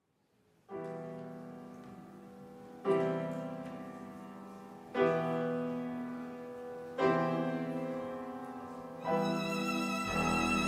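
Instrumental introduction: piano chords struck about every two seconds, each left to ring and fade, with a violin joining in near the end.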